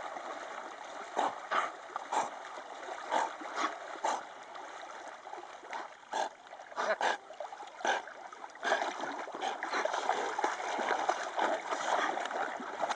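Dogs wading and swimming through shallow water, splashing irregularly in many short sharp splashes over a steady wash of moving water that grows fuller about two-thirds of the way in.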